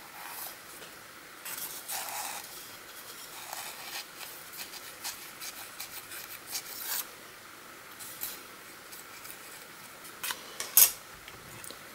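Wooden skewer rubbing and scraping inside a cardboard tube as a tissue-paper wad is pushed down onto the powder charge. The scratching is faint, with small clicks throughout and a few sharper clicks near the end.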